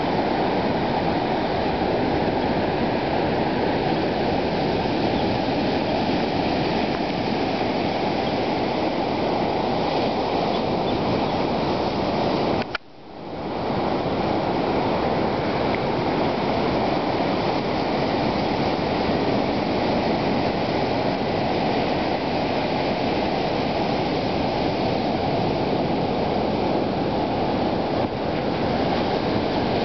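Ocean surf breaking on a beach, a steady dense rush of water noise, kicked up by an approaching hurricane. The noise drops out abruptly for a moment about thirteen seconds in and then comes straight back.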